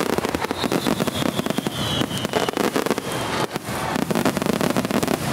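Aerial fireworks bursting overhead in a rapid barrage: dense bangs and crackling with no pause. A high whistle slides slightly down in pitch over the first three seconds.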